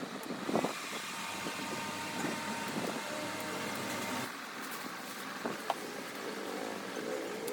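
Factory floor noise: a steady mechanical hum with a faint whine for the first few seconds, and a few sharp clicks or knocks about five and a half seconds in. The character of the noise changes abruptly about four seconds in.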